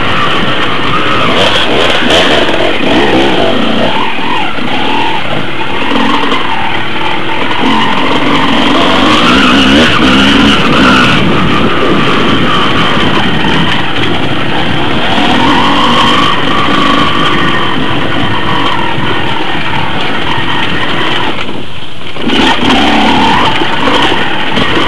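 Off-road motorcycle engine running hard close to the microphone, its pitch rising and falling with the throttle over rough trail, with a brief drop off the throttle near the end.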